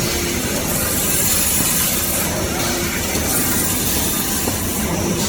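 Band saw cutting machine running: a steady loud mechanical noise with a high hiss that swells and fades every few seconds.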